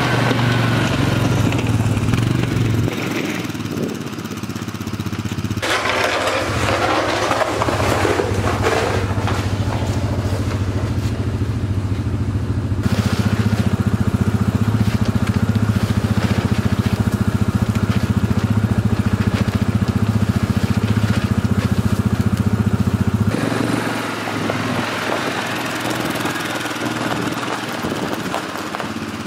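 Honda FourTrax ATV engine running as the plow-equipped four-wheeler is driven through the snow. There is a stretch of crunching noise about six seconds in, and the engine is loudest and steadiest in the middle before dropping back a little near the end.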